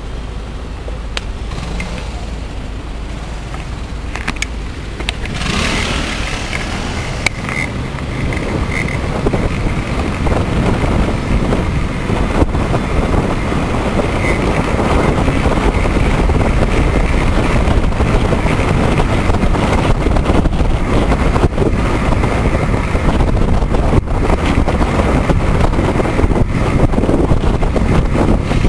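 Wind rushing over the microphone while riding a bicycle in road traffic, growing louder about five seconds in and then staying loud, with a few sharp clicks.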